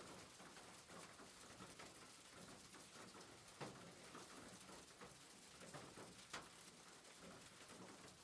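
Faint rain pattering on a roof, an even hiss with scattered single drops ticking louder now and then.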